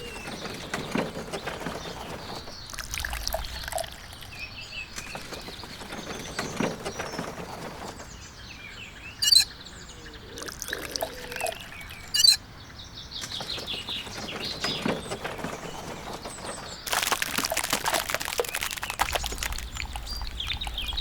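Intermittent pouring and splashing noise with birds chirping in the background and two brief loud chirps. A louder, steady rush of pouring starts about three-quarters of the way through.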